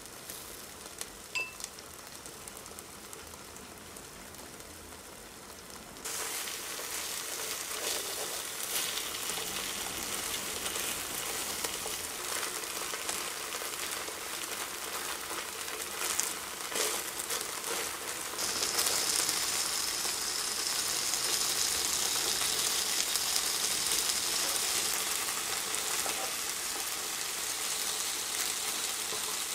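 Chicken breast strips sizzling in sesame oil in a nonstick frying pan. The sizzle grows louder about six seconds in and again a little past halfway, with a few light clicks in the middle.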